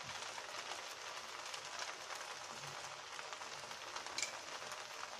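Boiled rice frying in butter and grated garlic in a non-stick pot: a faint, steady sizzle, with one light tick about four seconds in.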